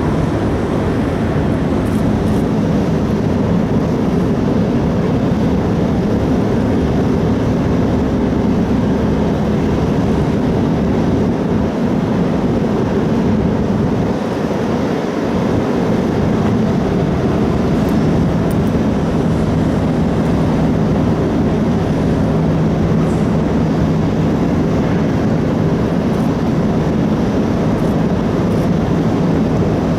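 Steady, loud drone of a large car ferry's engines and onboard machinery, a low hum running under a continuous rushing noise.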